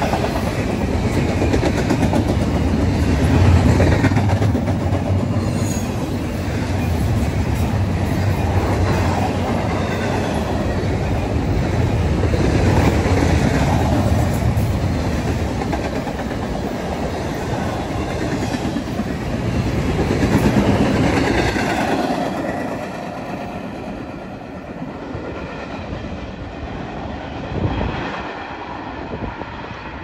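Double-stack intermodal freight train's container well cars rolling past on steel wheels with a steady heavy rumble, which fades over the last third as the end of the train passes and moves away.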